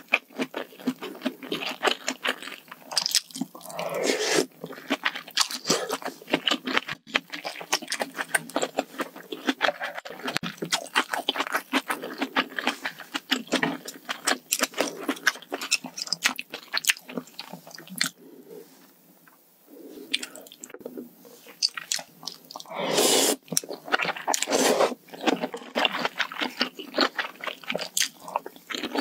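Close-miked mouth sounds of eating spicy hot pot (malatang): wet chewing and crunching of its vegetables, noodles and tofu skin, with two longer, louder slurps, about four seconds in and again around 23 seconds, and a short lull near 19 seconds.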